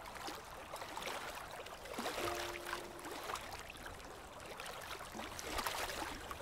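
Small waves lapping and washing at the water's edge, with irregular small splashes and crackles. About two seconds in, a faint pitched musical note sounds briefly.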